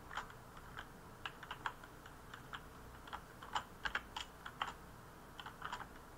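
Typing on a computer keyboard: irregular, short keystrokes, some in quick runs, as code is entered.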